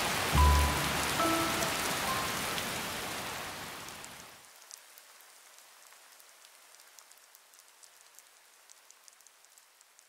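Heavy rain pouring down, with a low thump and a few short musical notes in the first two seconds. The rain tapers off around four seconds in, leaving only scattered drips.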